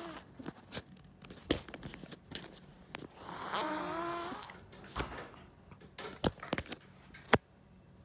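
Orange tabby house cat giving one long, wavering, hoarse yowl about three seconds in, with scattered sharp clicks and taps around it.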